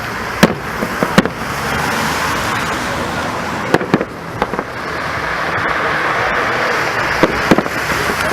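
Festive fireworks salute: sharp bangs of shells bursting, singly and in quick pairs, about seven in all, over a steady rushing background that grows a little louder in the second half.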